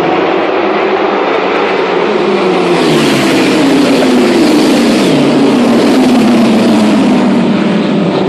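1000cc superbike racing motorcycles passing at speed, several bikes one after another, each engine note falling in pitch as it goes by. The sound is loudest about midway through.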